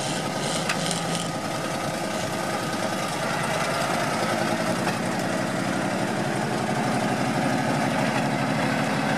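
GAZ-66 truck's engine idling steadily, a little louder after a few seconds in.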